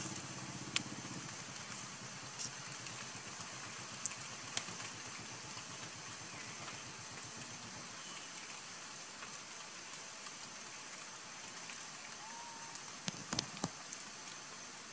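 Light rain dripping: a steady hiss of falling water with scattered sharp drops landing, several close together near the end.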